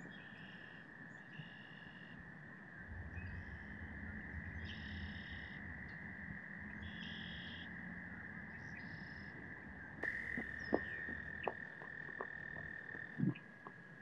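Frogs calling: one steady high trill held throughout, with shorter repeated calls above it about once a second for the first ten seconds. A few sharp knocks come near the end.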